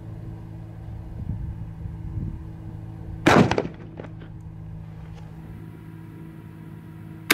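A shotgun fires once, about three seconds in: one loud shot that trails off briefly, followed by a couple of fainter knocks. It is a light load, a 15-gram carbon-fiber slug over 25 grains of powder, leaving the muzzle at about 998 fps, below the speed of sound.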